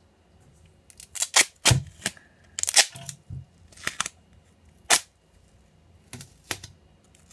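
Duct tape being pulled off the roll and torn, a series of short, sharp rips spread irregularly over several seconds.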